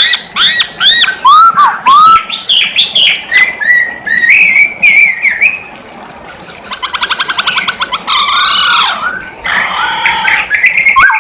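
Poksay hongkong (black-throated laughingthrush) singing loudly: a fast string of varied, arched whistled notes, with a rapid rattling trill about seven seconds in.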